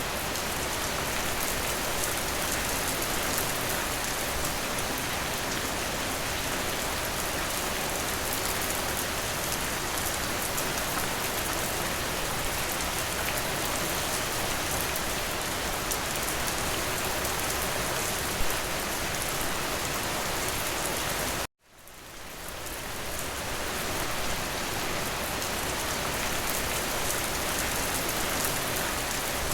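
Steady rain falling, an even hiss of drops, with one sharper tap about 18 seconds in. About 21 seconds in the sound cuts out suddenly for a moment, then fades back up, a splice in the loop.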